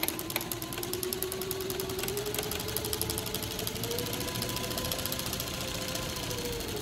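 Juki MS-3580 feed-off-the-arm three-needle chainstitch industrial sewing machine running, stitching a lap seam in denim. A fast, even clatter of stitches sounds over a motor whine that climbs in pitch for about five seconds, then dips slightly near the end.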